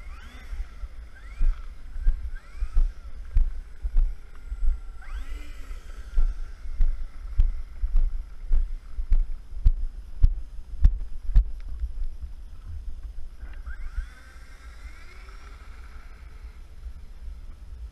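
Twin electric motors of an HK SkyMule RC plane spinning up in short throttle blips, each a rising whine: a few brief ones early on and a longer run near the end. In the middle, footsteps on concrete at a steady walking pace, with wind rumbling on the microphone throughout.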